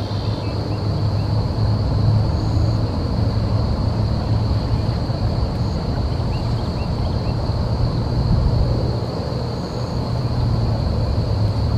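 Outdoor marsh ambience: a steady low rumble, with a constant high-pitched insect drone and a few faint, short bird chirps.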